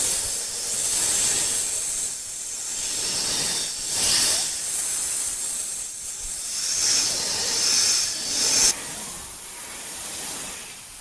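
Snake hissing: one long, breathy hiss that swells and eases several times and drops sharply just before the end.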